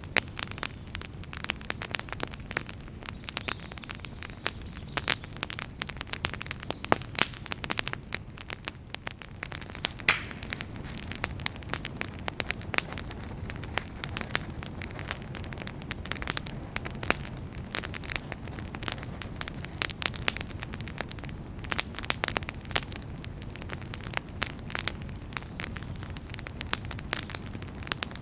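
Wood fire burning in a fireplace: frequent irregular crackles and pops over a steady low rumble of flame.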